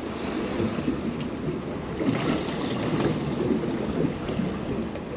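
Sea water washing and slapping against the hull of a drifting boat, with wind buffeting the microphone; a steady, noisy wash with no single event standing out.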